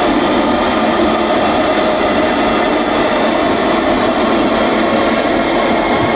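Minimal techno played loud on a club sound system, captured distorted by a phone microphone. It is a dense, steady wash, thin on bass, with no clear beat standing out.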